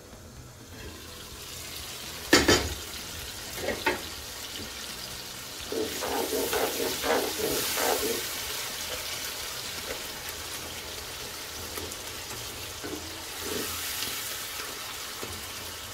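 Chopped tomatoes sizzling in oil in a non-stick pot, with a wooden spoon stirring and scraping through the sauce. There is a sharp knock about two seconds in and a smaller one a second later, with a busier stretch of stirring strokes in the middle.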